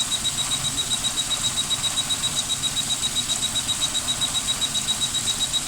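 Power Probe IV circuit tester beeping in a high-pitched, rapid, even pulse, about six beeps a second, each beep marking one firing of the fuel injector it is connected to, over the low running of the Suzuki Grand Vitara's idling V6.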